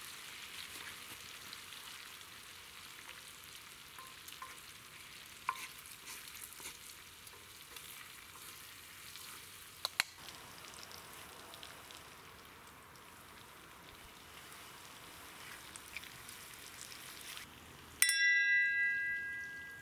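Meat sizzling in a disc pan over a campfire, with a few sharp clicks. About 18 seconds in, two crystal wine glasses clink together and ring out with several clear tones, fading over about a second and a half.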